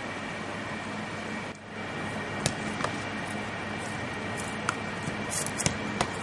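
Steady outdoor background noise with a faint hum. In the second half come a handful of short, sharp clicks and knocks at irregular intervals.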